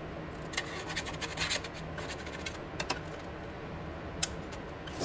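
Crisp toasted bread sandwiches scraped and shifted across a steel plate with a wooden spatula and by hand: a few short, scratchy scrapes and light taps at irregular moments.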